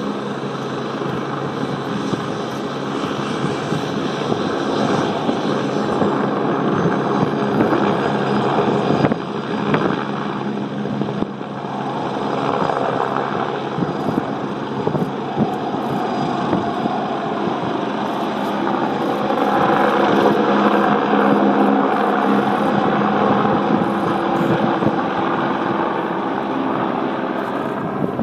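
Agusta A109 medevac helicopter running, a steady mix of turbine and rotor noise that grows louder for a few seconds about two-thirds of the way through.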